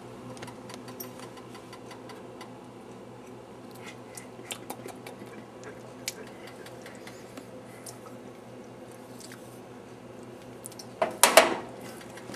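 Quiet kitchen room tone with a steady low hum and scattered faint clicks, then a brief loud clatter about eleven seconds in as a hand works at the stove.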